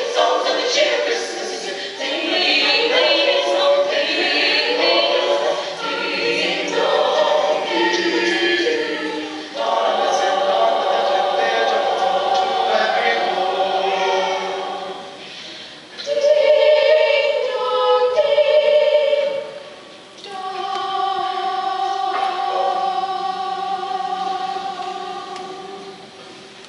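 Mixed choir of young male and female voices singing in close harmony, in held phrases with brief breaths between them. It ends on a long sustained chord that fades away near the end.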